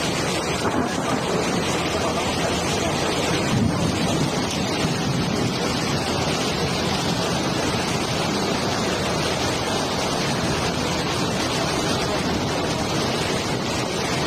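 Storm wind blowing hard across the microphone, a steady rushing noise, with choppy sea waves washing underneath.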